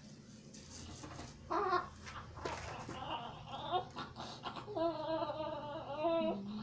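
Newborn baby fussing and crying in short wavering cries, then a longer cry near the end.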